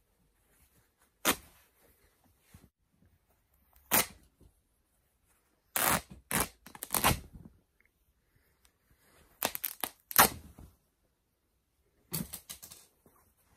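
A small red Superdry hoodie is being ripped apart by hand, its fabric and seams tearing in short, sharp rips. There are single rips and quick runs of them, coming every few seconds, with quiet in between.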